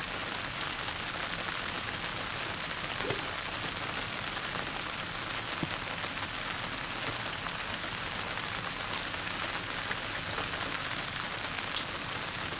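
Steady hiss of light rain falling, with a few faint scattered drip ticks.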